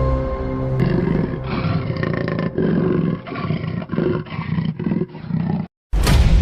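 A deep animal roar, breaking into a rough string of pulses that cuts off suddenly near the end, with a deep boom starting just after.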